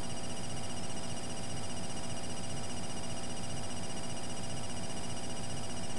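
A steady buzzing hum and hiss, with several steady whining tones layered from low to high pitch, and no speech.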